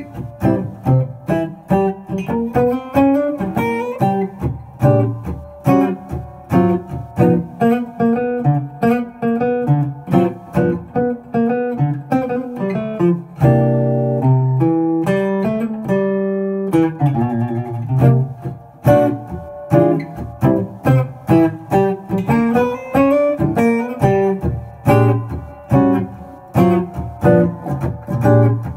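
Solo 1959 Enrico Piretti archtop guitar played through a Trace Elliot amplifier, picking a jazz melody in a quick, rhythmic single-note line. About halfway through, a few notes are held longer.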